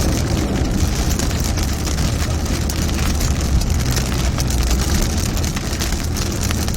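Heavy rain drumming on a car's roof and windshield, heard from inside the cabin over the steady low rumble of the car driving. The drops make many small, dense ticks.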